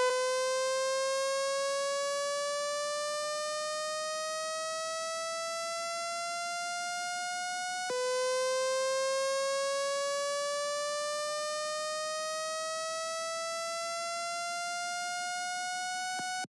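A building fire alarm being tested, sounding its evacuation tone: a harsh, siren-like tone that starts abruptly and rises slowly for about eight seconds, drops back, and rises again before cutting off.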